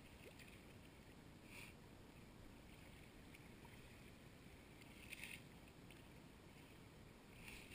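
Near silence, with three faint, brief sloshes of shallow water, about 1.5, 5 and 7.5 seconds in.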